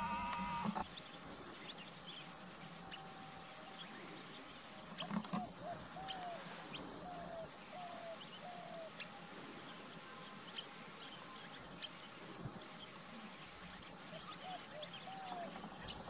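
Steady high-pitched insect chorus. A series of short, arched whistled bird notes repeats about once a second in the middle and again near the end.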